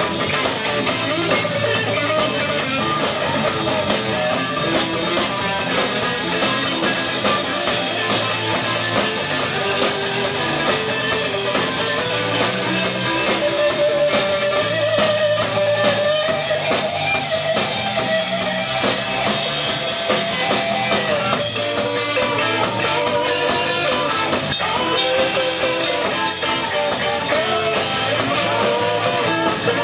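Live rock band playing an instrumental passage: electric guitar over electric bass and a drum kit, steady and loud throughout.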